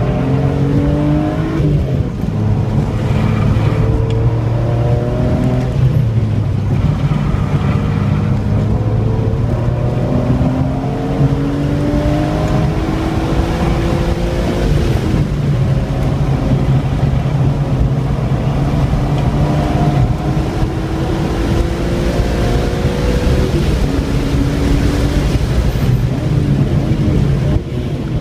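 2003 BMW M3's straight-six engine under hard acceleration on a racetrack, heard from inside the cabin. Its revs climb steadily and drop back sharply several times through the lap, over steady tyre and wind noise.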